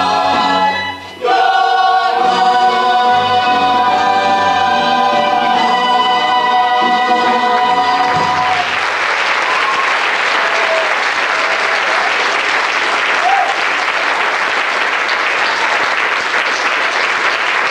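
A stage musical's cast singing the end of a song in chorus, holding one long final chord that stops about eight seconds in. An audience applauds for the rest of the time.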